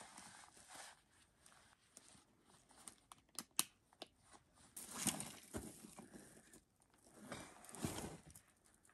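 Faint rustling and scraping of clothing and a heavily loaded backpack against the forest floor as a hunter struggles to rise under a load of elk meat and antlers. There are a few sharp clicks about three and a half seconds in and louder rustles about five and eight seconds in.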